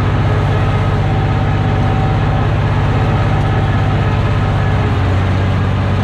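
Farm tractor engine running steadily, with a low hum and a fast, even firing pulse.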